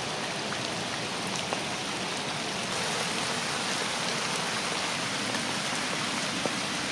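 Rain falling on an umbrella overhead: a steady hiss with faint ticks of single drops.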